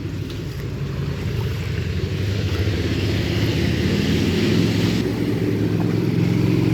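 Car driving: steady engine and road rumble with tyre hiss that swells a little in the middle.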